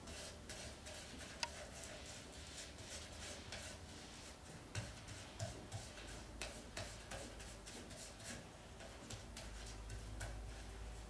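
Faint, irregular light ticks and scrapes, a few a second, from a small hand tool worked against a block.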